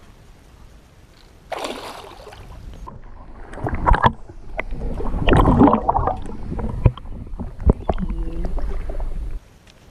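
Water splashing and gurgling around a camera dipped at and below the surface beside a hooked saratoga (Australian arowana). A hissing splash comes about a second and a half in. From about three and a half seconds there is a long stretch of heavy, low, muffled sloshing with sharp knocks, which cuts off suddenly near the end.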